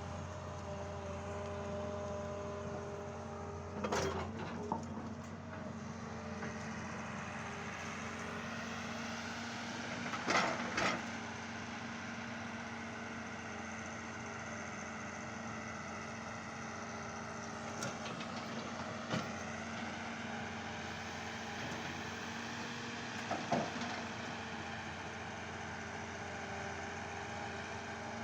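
Excavator's diesel engine running at a steady pitch, broken by a handful of short sharp knocks, the loudest about ten seconds in.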